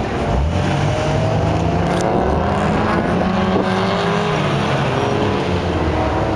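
Car engines idling close by, with a more distant engine rising and falling in pitch as a car is driven hard around the autocross course.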